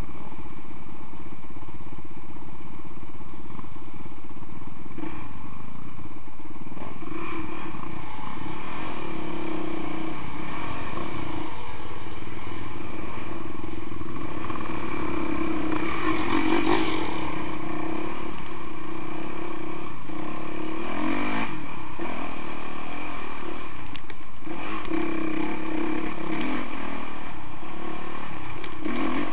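Honda CRF 450R dirt bike's single-cylinder four-stroke engine running close and loud, fairly even at first and then revved in repeated surges as the bike rides on, with other dirt bike engines running nearby.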